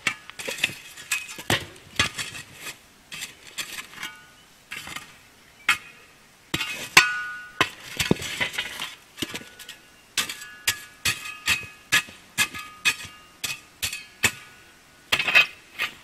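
Metal shovel scooping and scraping ashes and coals around a camp oven in a campfire, with many sharp clinks and knocks, some ringing briefly as the blade strikes metal.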